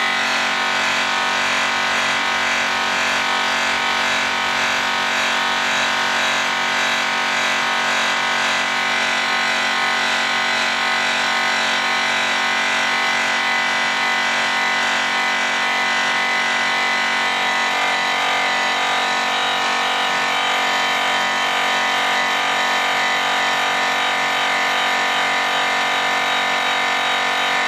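DeWalt variable-speed polisher running steadily with a yellow airway cutting wheel loaded with rouge, buffing an aluminum car wheel: a steady, even motor whine.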